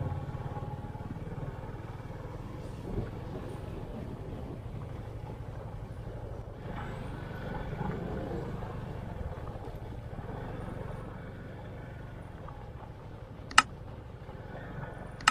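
Motorcycle engine running steadily at low speed on a rough dirt track, a low even hum with some road and wind noise. A single sharp click near the end.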